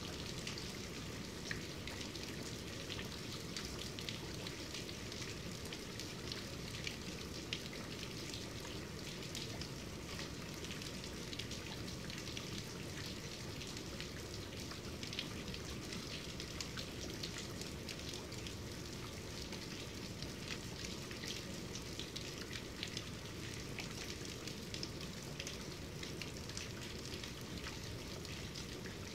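Medium-to-heavy rain falling steadily, with many separate drop hits through an even wash of rain.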